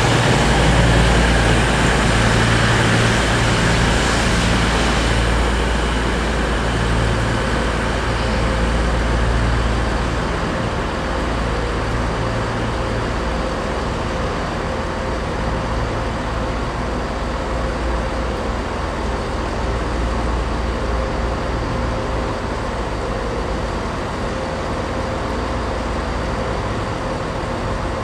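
Class 222 Meridian diesel multiple units running at low speed, a steady low diesel drone with a faint steady whine over it. Louder running noise from a train moving close by fades over the first several seconds.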